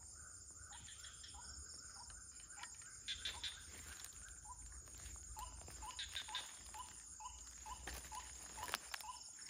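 Night insects trilling steadily. Over them a short call repeats about three times a second, with a few faint clicks.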